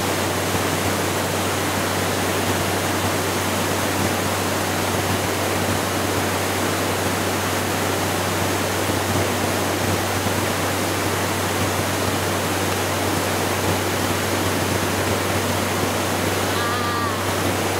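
Maria Cristina Falls, a tall waterfall, rushing: a steady, even roar of falling water that doesn't change in level.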